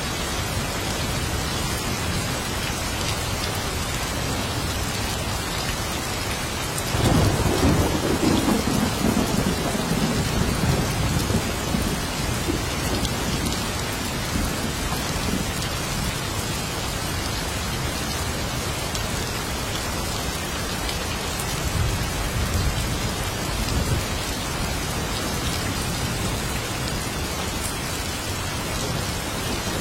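Steady heavy rain, with a loud thunderclap rumbling in about a quarter of the way through and slowly fading, and another roll of thunder starting right at the end.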